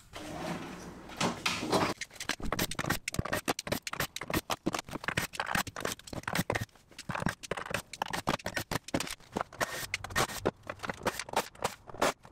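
Plywood cabinet parts being handled and taken apart: a couple of seconds of sliding scrape as a drawer comes out along its metal slides, then a quick, irregular run of wooden knocks, clacks and scrapes as pieces are lifted and set down.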